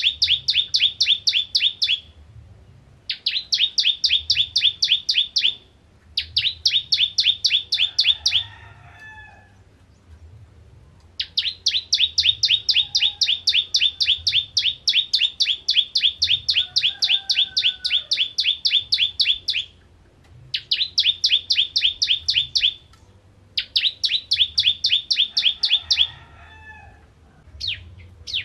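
A caged ciblek (bar-winged prinia) singing in fast rattling runs of sharp repeated notes, about six a second, in bouts of a few seconds broken by short pauses; the longest run lasts about eight seconds in the middle. Fainter, lower calls of another bird sound in some of the gaps.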